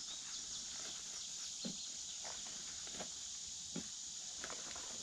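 Outdoor farmyard ambience: a steady high insect drone, with a few faint falling bird chirps near the start and several short, soft animal calls spaced through the middle.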